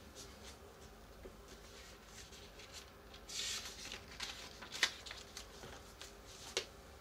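Pan of water at a bare simmer with cod fillets poaching: faint scattered ticks and small pops, a brief hiss about three seconds in, and two sharper clicks later on.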